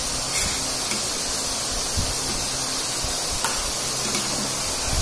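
Steady background hiss with a faint low hum, broken by a few soft clicks.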